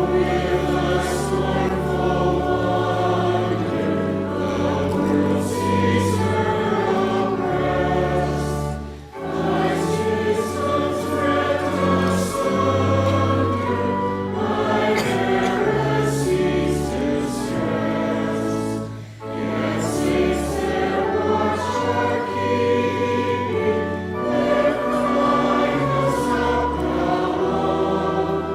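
A choir singing a hymn with accompaniment, in phrases broken by short pauses about every ten seconds.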